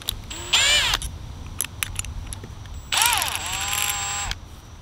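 Cordless drill motor running in two short bursts while a bit is being fitted in the chuck. The first burst, about half a second in, is brief. The second, starting about three seconds in, lasts over a second; its pitch drops and then holds steady. A few light clicks come between the bursts.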